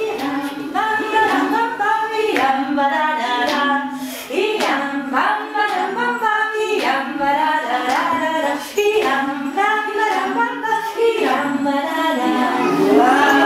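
A group of adults, women's voices leading, singing a simple children's song together, with a few hand claps.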